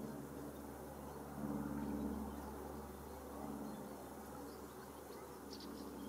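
A flying insect buzzing, swelling louder for a moment about one and a half seconds in.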